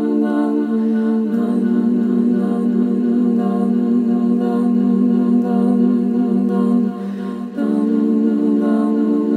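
A cappella vocal music: several voices humming long, low notes together as a steady drone. The voices shift to new notes a little over a second in, fall away briefly about seven seconds in, and come back.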